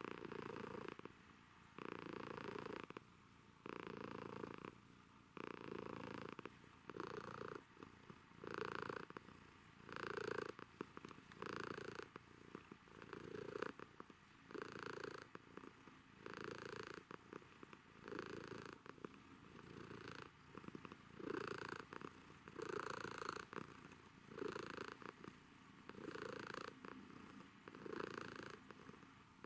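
Domestic cat purring while being stroked on the cheek and head, the purr swelling and fading about once a second.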